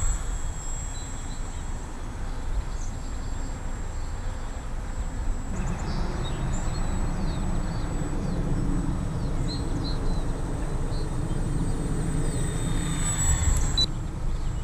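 Electric motor and propeller of an E-flite P-40 Warhawk 300 radio-controlled model plane flying by, its whine sliding down in pitch just after it passes close overhead, then rising again as it comes back near the end. Wind rumbles on the microphone throughout, and a few birds chirp.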